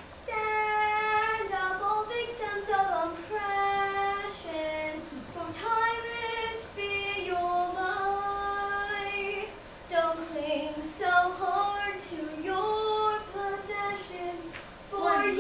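A girl singing a slow song solo and unaccompanied, holding long notes that slide between pitches.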